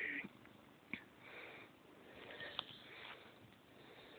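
Soft, short sniffs from a pet close to the microphone, in a few separate bursts, with a couple of faint clicks.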